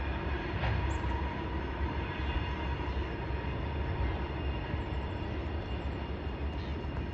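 Diesel locomotives of an approaching freight train, heard from afar as a steady low rumble. A few faint high bird chirps sound over it about a second in and again around five seconds.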